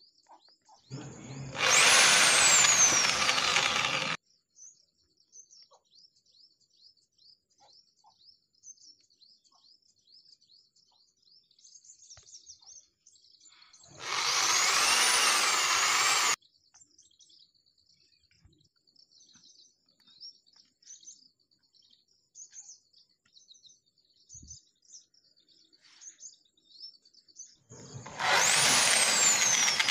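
Corded electric drill run in three bursts of two to three seconds, boring holes through the wall of a plastic drum; each burst opens with a high whine that falls in pitch. Birds chirp faintly between the bursts.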